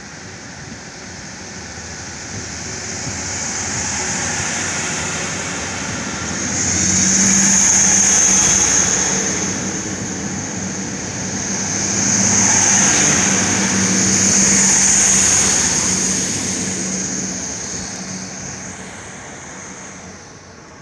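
Two coupled NS DM'90 'Buffel' diesel multiple units pulling away from a station stop: the diesel engines run under power with a steady high whine and a low hum, growing louder as the train passes, peaking twice, then fading as it moves off.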